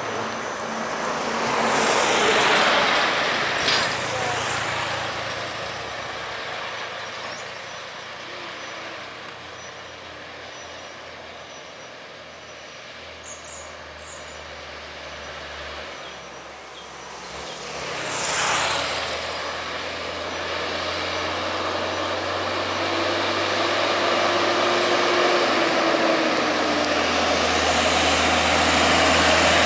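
Heavy diesel trucks passing on a hill road: engines running and tyres rolling, with two short air-brake hisses, one a few seconds in and one past the middle. Near the end a Hino box truck comes up close and its engine grows louder.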